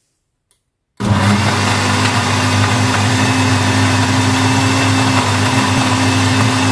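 Glass-jar countertop blender switched on about a second in, running steadily at full speed with a constant motor hum as it blends soy milk, fruit and frozen pieces into a drink.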